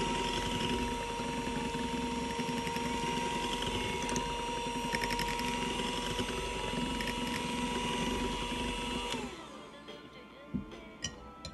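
Electric hand mixer running steadily with a high whine, its wire beaters whisking cheesecake batter in a glass bowl. About nine seconds in the motor is switched off and winds down, its pitch falling.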